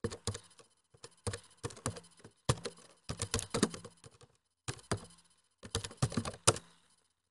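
Computer keyboard typing: keystrokes in several short runs with brief pauses between them.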